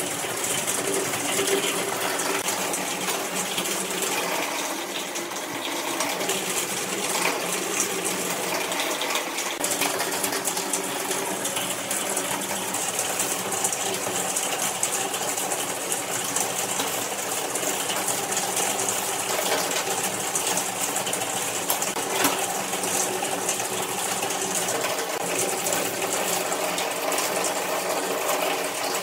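Stick-welding arc crackling and hissing steadily as joints in steel square tubing are tack-welded.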